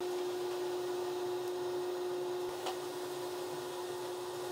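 Tumble dryer running: a steady mechanical hum with one constant tone and one faint tick about halfway through.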